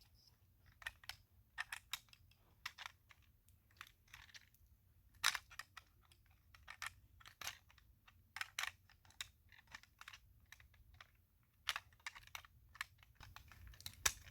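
Small diecast toy car parts being handled and fitted by hand: irregular light clicks and taps, a few sharper ones about five, eight and a half, and twelve seconds in.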